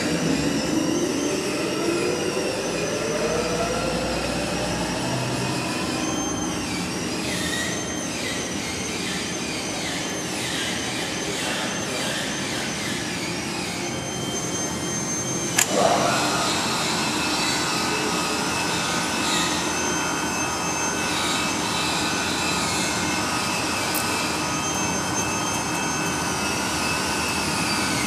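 Industrial guillotine paper cutter running: a steady motor hum with several whining tones, one whine rising in pitch over the first few seconds. A sharp click comes about halfway through, and falling whines come near the end.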